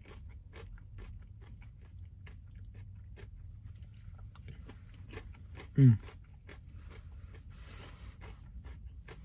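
A person chewing crunchy frozen custard with waffle cone pieces and peanuts close to the microphone: irregular crunching clicks throughout, with one short falling hum of voice about six seconds in.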